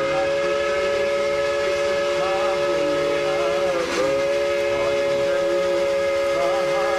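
Train whistle sounding a long, steady chord of several close tones, which wavers and dips briefly about four seconds in.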